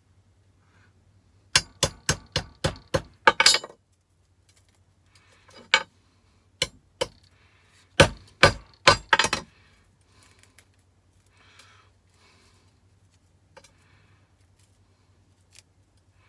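Hard hammer-like blows smashing open a tiny copper-wound electronic component: a quick run of about eight sharp, clinking strikes, then after a short pause another cluster of about six. Faint small clicks and clinks of the pieces follow.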